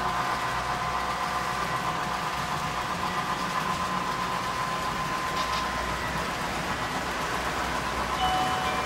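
Model train rolling along the layout track: a steady running rumble with a steady whine over it. A short high tone sounds near the end.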